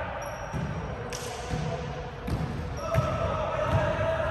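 Basketball bouncing repeatedly on a court floor during play, about once every half-second to second, with voices in the background.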